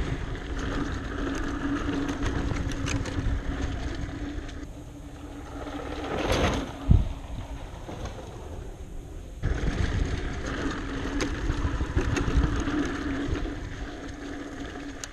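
Mountain bike ridden on dirt singletrack, heard from the bike: wind on the microphone, tyre rumble and frequent small rattles and clicks. In the middle, heard from beside the trail, the bike sweeps past across a wooden berm with a rising-then-fading whoosh and a sharp thump about seven seconds in.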